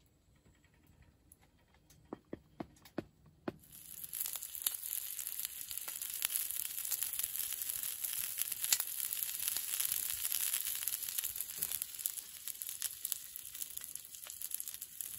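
Several sharp knocks of wood going into a wood stove, then the freshly loaded stove fire catching with a steady crackling hiss and fine pops.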